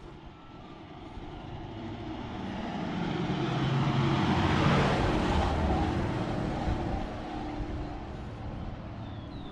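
A motor vehicle drives past: its engine and tyre noise grow louder, peak about halfway through, then fade away.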